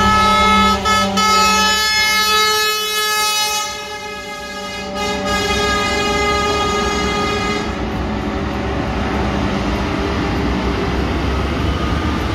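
Semi-truck air horn sounding one long steady tone, broken briefly about a second in, then fading out around eight seconds in; after that, diesel truck engines and traffic noise.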